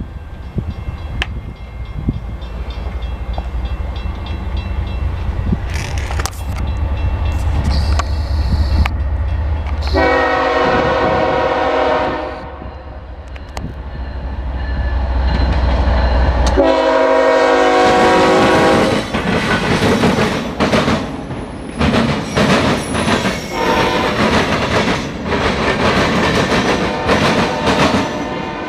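Norfolk Southern freight train's diesel locomotives approaching with a low rumble, sounding two long horn blasts. The cars then roll past with rapid, repeated wheel clatter over the rail joints.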